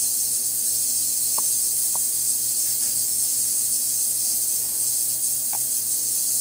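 1200-watt ultrasonic rod transducer running in a tank of plain water, the liquid cavitating with a steady high hiss. A low hum pulses rapidly underneath, and a few faint chirps come through.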